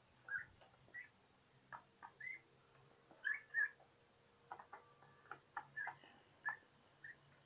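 Young turkeys about four months old giving short, high peeping whistles at irregular intervals while feeding, mixed with light taps of beaks pecking at the feed dishes.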